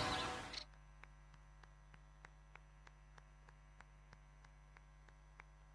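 Church bells with music fade out within the first half second. Then near silence with a steady low hum and faint, evenly spaced ticks, about three a second.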